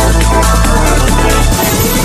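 Electronic dance music with a steady beat and a held bass line that changes about one and a half seconds in.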